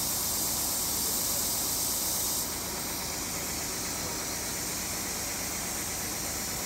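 A steady high-pitched hiss that drops a little in level about two and a half seconds in.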